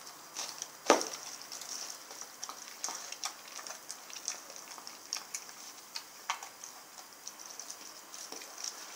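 Rottweiler gnawing and chewing a raw lamb shank: irregular clicks of teeth on meat and bone, the loudest about a second in.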